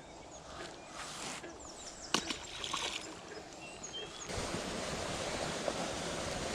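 Faint outdoor background with a few short bird chirps and a sharp click about two seconds in; about four seconds in it switches abruptly to a steady hiss of falling rain.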